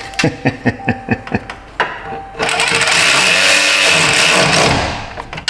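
A ratchet wrench clicking in quick strokes, about five a second, being tightened on the PCM's mounting. Then a louder, steady mechanical buzz runs for about two seconds.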